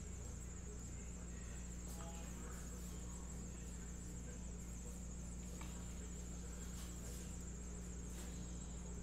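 Quiet room tone: a steady low electrical hum with a thin, steady high-pitched whine above it, and a few faint clicks.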